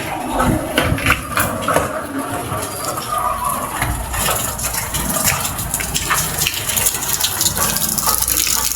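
Heavy typhoon rain pouring and splattering, with many small hits, the downpour growing heavier about four seconds in.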